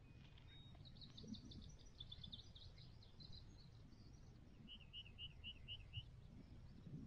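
Faint birdsong over low background rumble: a quick run of high notes lasting a couple of seconds, then a few seconds later a row of five evenly spaced, slightly lower notes.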